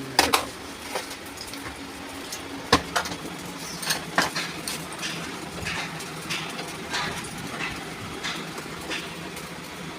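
Small metal parts and tools clinking and knocking as a rotary diesel injection pump is worked on, in scattered, irregular clicks over a faint steady hum.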